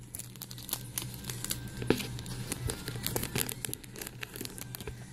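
Plastic packaging crinkling and rustling as goods are handled and unwrapped, in dense irregular crackles, with one sharper snap about two seconds in.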